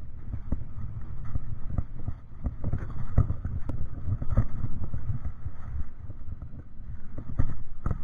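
Handling noise: the action camera's microphone rubbing and bumping against clothing, giving irregular low thumps and muffled rustling, with wind on the microphone.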